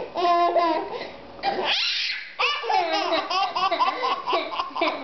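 A baby and a toddler laughing and squealing in high-pitched voices, with a short shrill shriek about two seconds in.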